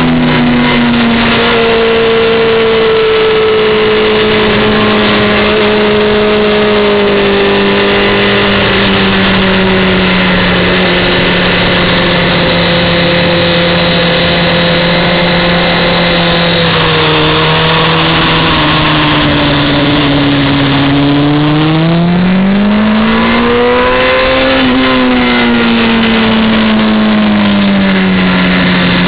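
Honda CBR600F4i's inline-four engine heard from the rider's seat under way, with wind rush. Its pitch sinks slowly for about twenty seconds, then climbs quickly and falls again near the end.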